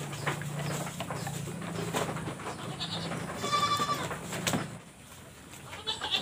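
Goat bleating, a short high cry about three and a half seconds in, over a low steady hum and scattered knocks. The goat is crying out from the pain of an injection of a stinging cough-and-flu drug.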